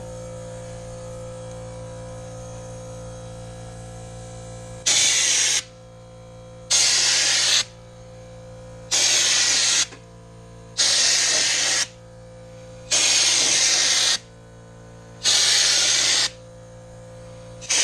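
Spray gun applying liquid sound-deadening coating, hissing in short bursts of just under a second each, about two seconds apart, starting about five seconds in. A steady low hum runs underneath.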